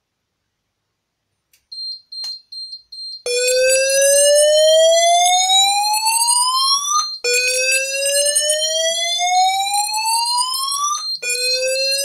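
Fire alarm system going into alarm after a smoke detector was tripped with aerosol test smoke. A high rapid beeping starts about two seconds in. About a second later an electronic sounder begins slow upward-sweeping whoops, each rising in pitch over about four seconds before resetting, with the beeping carrying on beneath it.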